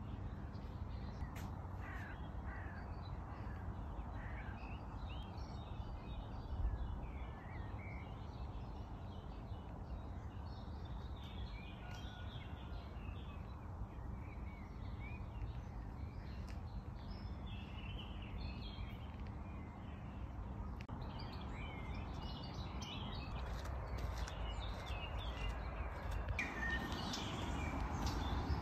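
Outdoor birdsong: several birds chirping and calling on and off over a steady low rumble, growing busier and a little louder near the end.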